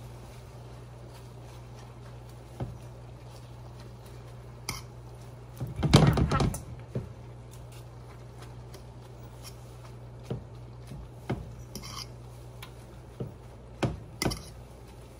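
Utensils knocking and scraping against a skillet as wilting spinach is pushed down and stirred: scattered clinks, with a louder clatter about six seconds in. A steady low hum sits underneath.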